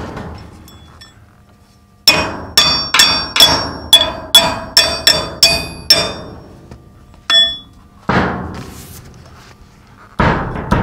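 A hammer striking steel: about ten quick, ringing blows over some four seconds on a steel mounting bracket being set against a loader bucket's back plate. A couple of heavier, duller knocks follow near the end.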